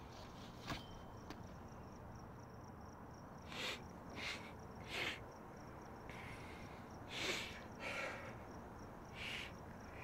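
Crickets chirping steadily in a faint, even pulse, with several short hissing sounds scattered through the second half.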